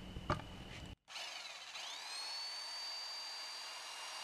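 A short metallic clink, then a portable bandsaw's motor starting: its whine rises over about a second and settles to a steady high pitch as the blade runs.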